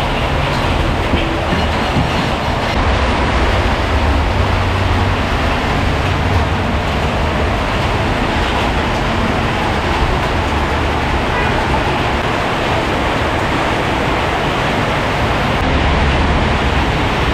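Heavy rain pouring down, a dense steady hiss with a low rumble underneath.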